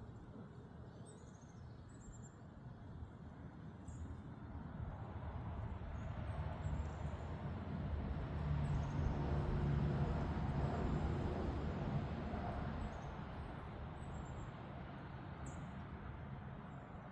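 A motor vehicle passing in the distance, its low engine and road hum swelling to a peak about ten seconds in and then fading. Birds chirp briefly and repeatedly throughout.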